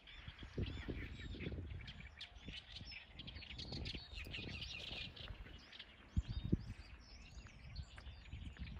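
Many small birds chirping and twittering all through, over a low rumble. Two short thumps come about six seconds in.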